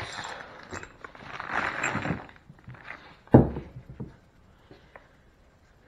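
Handling noises of engine parts: rustling and light clicks, then one sharp knock a little over three seconds in.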